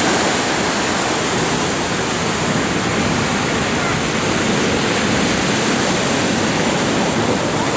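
Heavy storm surf breaking on the shore: a loud, continuous rush of churning water with no single wave standing out.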